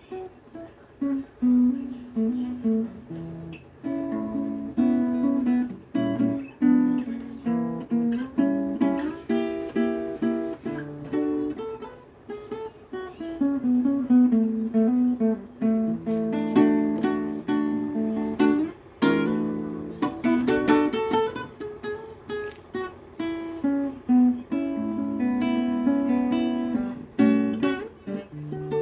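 Solo guitar improvisation: picked single notes and chords, with a run of quick strummed chords in the middle.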